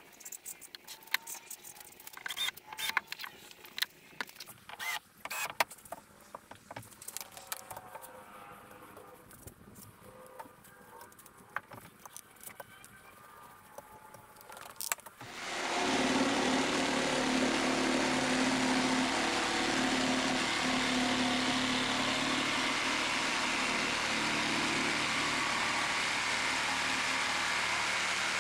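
Small scattered clicks and knocks of handling, then about halfway a handheld cordless power tool starts suddenly and runs at a steady pitch.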